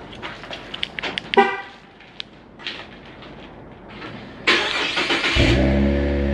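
Cadillac ATS-V's twin-turbo V6 being started: a few clicks and a short horn chirp about a second and a half in, then the starter cranks about four and a half seconds in and the engine catches, its revs flaring and settling into idle.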